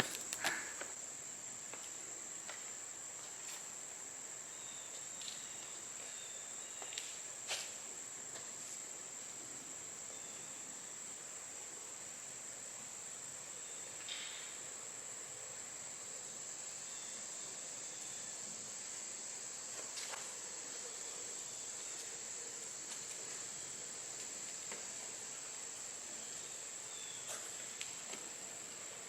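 Insects trilling, cricket-like: one steady, unbroken high-pitched tone, with a few faint clicks.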